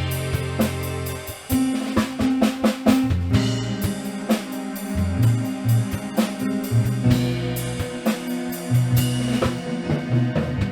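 A band playing with a drum kit: quick drum strikes over held bass notes that change every second or so.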